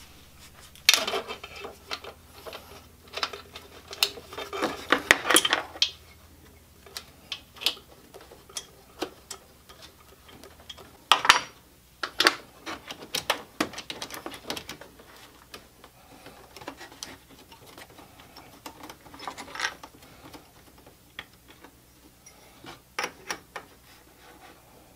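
Hand tools working on metal engine fittings: irregular clicks and clinks of a ratcheting wrench and metal parts, coming in spells with quieter stretches between. The wrench is tightening the threaded fitting of the steam crossover tube.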